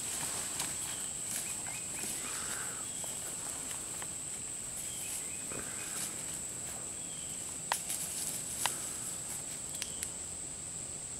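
Insects droning with a steady, high-pitched buzz, with a couple of soft clicks about two-thirds of the way through.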